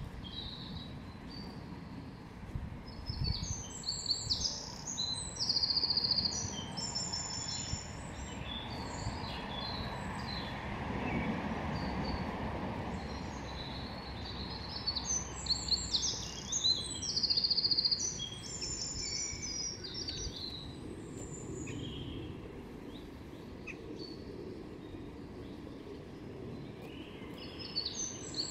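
Songbirds singing, with short chirps and fast trills in bunches, over steady outdoor background noise. A low rumble in the background swells and fades about halfway through.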